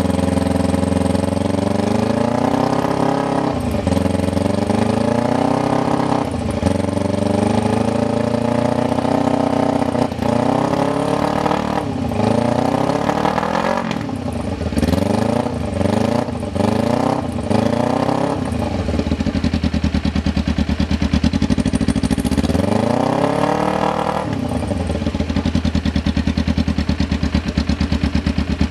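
2008 Kawasaki Ninja 250's parallel-twin engine running, its throttle blipped again and again so the revs rise and fall every few seconds. About halfway through comes a quick run of short revs, then one more rev, after which it settles to a steady idle for the last few seconds.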